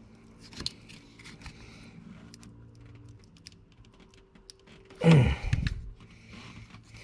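Light clicking and rattling of a corroded blower motor resistor and its plastic wiring connector being worked by hand, then a sudden louder thump about five seconds in as the stuck connector comes free.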